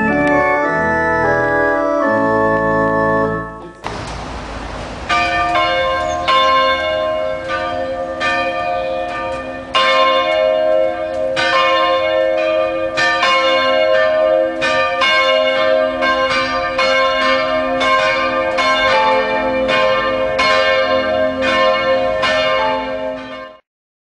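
Organ music plays for the first four seconds and stops at a cut. Then church bells ring in repeated strokes, roughly one every half second to a second, over a lasting hum. The bells cut off suddenly just before the end.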